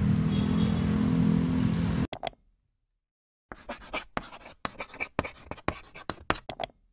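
Steady outdoor background noise with a low hum, cut off abruptly about two seconds in; after a moment of silence, a writing sound effect follows: quick, irregular scratching strokes that go with a quote being written out on screen.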